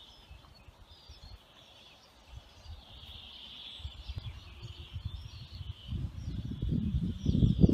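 Birds chirping over a steady high-pitched insect drone, with an irregular low rumble that builds through the second half and is loudest near the end.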